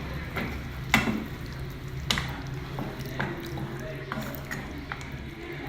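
Water poured into a pot of meat stew to thin the thick sauce, with liquid dripping and squishing, two sharp knocks about a second apart and a steady low hum underneath.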